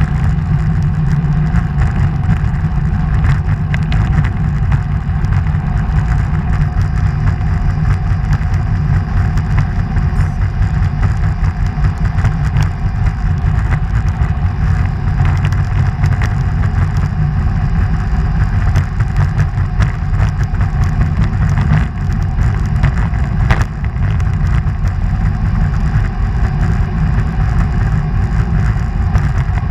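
A road vehicle driving at a steady speed: a continuous low rumble of engine and road noise.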